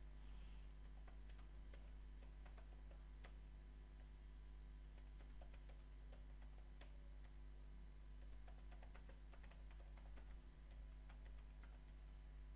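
Faint computer keyboard typing: a long run of quick, irregular key clicks over a steady low hum.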